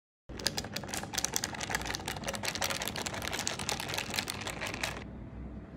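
Ice cubes clicking and rattling against a drinking glass as an iced latte is stirred with a straw: a rapid, dense run of clicks that starts a moment in and stops near the end.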